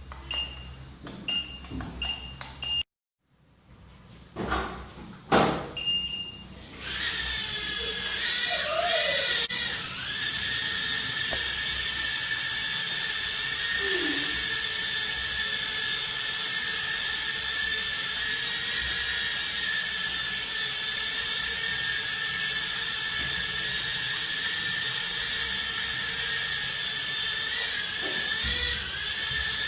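Several short electronic beeps, then a toy racing quadcopter's small electric motors and propellers spin up about seven seconds in. They run with a steady high whine and hiss, the pitch wavering briefly as the throttle changes.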